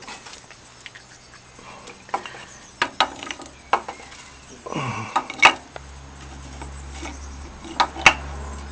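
Scattered light knocks and clinks, as of small hard objects being handled, with a low steady hum coming in about two-thirds of the way through.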